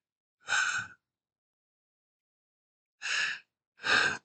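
A man's audible breaths: three short, breathy sighs, one about half a second in and two close together near the end, with no voice in them.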